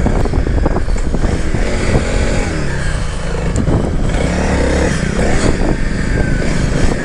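Honda CRF300L's single-cylinder engine running under way, its pitch rising and falling with the throttle.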